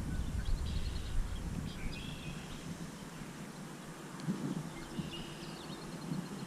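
Wind rumbling on the microphone, easing after about two seconds, with small birds calling in short chirping trills a few times.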